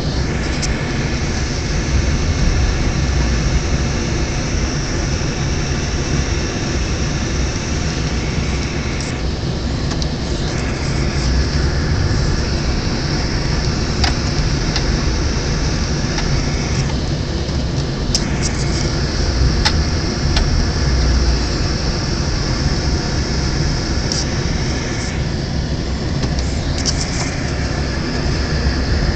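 Car cabin noise while driving slowly on snow: a steady low engine and road rumble with a high hiss over it that drops out briefly a few times, and a few light clicks.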